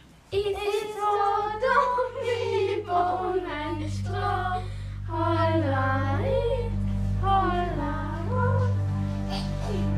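Young female voices singing a song over an instrumental accompaniment of steady held low notes. The singing stops about eight seconds in and the accompaniment carries on alone.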